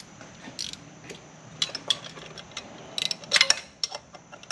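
Hand tools and metal parts clicking and clinking irregularly during fitting work, with a louder cluster of clinks about three seconds in.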